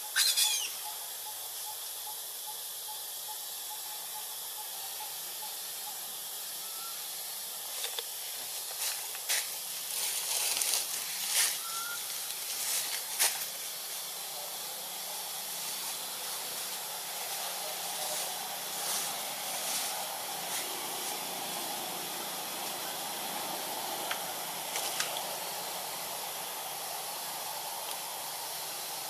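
Steady high hiss of outdoor background, with a brief, high, falling squeal from a baby long-tailed macaque right at the start. A scatter of sharp clicks and rustles follows in the middle as the monkeys move among the branches.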